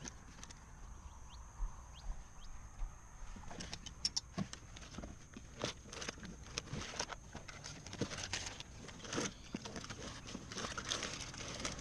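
Clicks, knocks and rustles of hands handling fishing gear on a plastic kayak. Sparse at first, then busier about three and a half seconds in.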